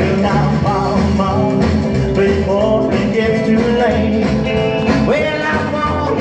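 A rock-and-roll 45 rpm single playing on a vintage console radiogram's record changer, heard through its built-in speaker as steady, loud band music with a beat.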